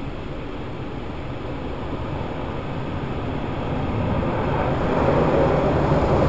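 Car-wash water spray hitting the windshield and body, heard from inside the car: a steady rushing hiss that grows louder about four seconds in, as the glass is covered in water.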